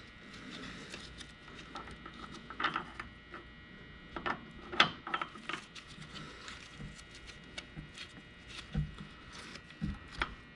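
Differential spider gears and side gears clicking and knocking against each other and the carrier as they are rotated into mesh by hand, in scattered short taps with the loudest about five seconds in. The gears are still a tooth off, so they will not line up for the cross pin.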